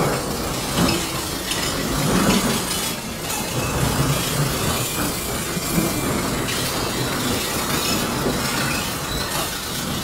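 Freight train cars rolling past a crossing, giving a dense metallic clatter of rattles and clanks.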